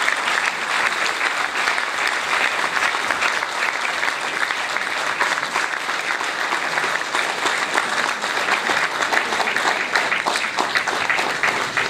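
Audience applauding, a dense, steady clapping at the close of a speech.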